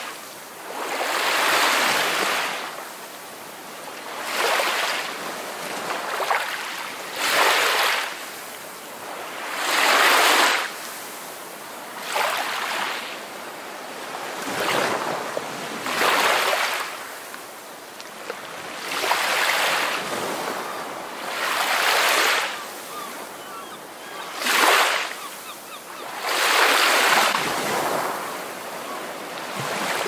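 Ocean waves breaking and washing in, the surf swelling and fading about every two to three seconds.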